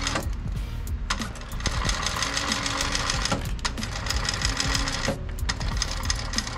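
TechSew 2750 cylinder-arm industrial sewing machine stitching a hair weft onto a wig cap, on its 700 speed setting. It runs in spurts, stopping briefly near the start, a little past halfway and about five seconds in.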